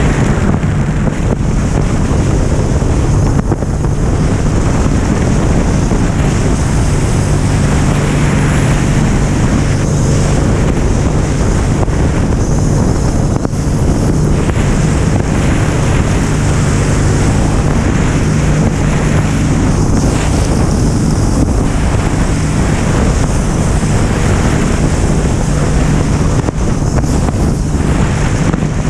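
Motorcycle riding at steady highway speed, its engine running at a constant pitch under loud, continuous wind buffeting on the camera microphone.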